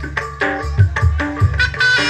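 Live Javanese jaranan ensemble music: kendang drum strokes and short struck gong-chime notes in a quick, busy rhythm, with a reedy slompret (shawm) coming in near the end.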